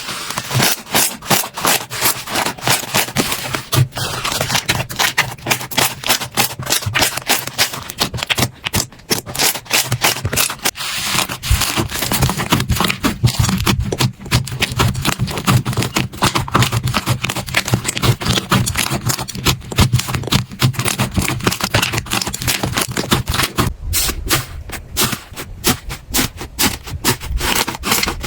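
Slime being worked and squeezed, a dense, continuous run of sticky clicks and crackling pops, with a fuller, lower squelch joining in about a third of the way through.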